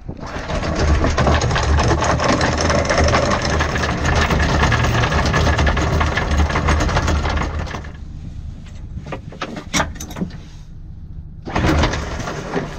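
Electric anchor windlass letting out chain, the chain clattering over the gypsy and down through the locker with a steady motor hum. It eases off about eight seconds in, leaving a few sharp clanks, then clatters again near the end.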